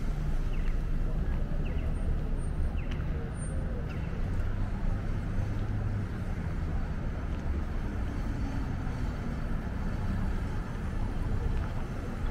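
City street traffic: a steady low rumble of passing vehicles under a general urban hum.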